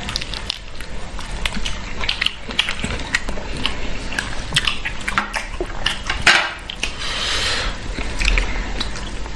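People eating a prawn curry meal: chewing and biting, with small clicks and cracks of prawn shell and plate. There is a louder crack about six seconds in.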